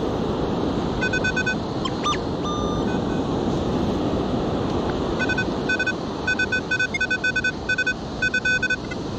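Metal detector beeping in short, repeated electronic tones, signalling a metal target in the sand: a brief run of beeps about a second in and a longer, choppy run through the second half. A steady wash of surf and wind underneath.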